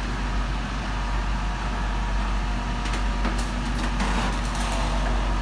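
Volvo EC55D mini excavator's diesel engine running steadily as the machine drives out of a shipping container, with a quick series of sharp clanks and knocks about three to four and a half seconds in.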